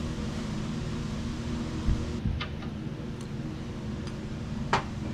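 Steady background hum, like a shop fan or air conditioner, with a few light clicks and taps of small parts being handled: a couple about two seconds in and a sharper one with a brief ring near the end.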